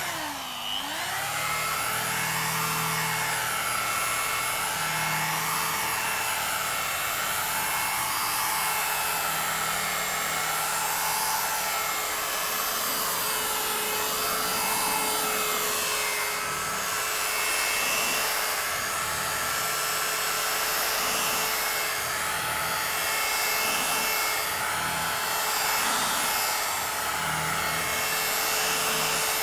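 Rotary polisher with a wool pad running steadily, buffing compound into a GRP gelcoat panel. Its whine dips in pitch briefly at the start, then wavers slowly up and down as the pad is worked across the panel.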